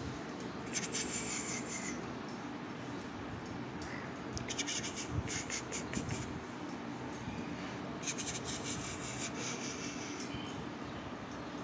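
A hand rubbing a wriggling puppy's fur on a concrete floor: scratchy rubbing that comes in three bursts of a second or two each.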